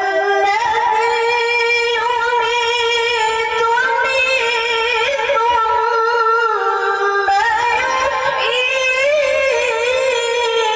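A woman chanting Qur'an recitation in a melodic style, holding long ornamented notes that waver and slide in pitch.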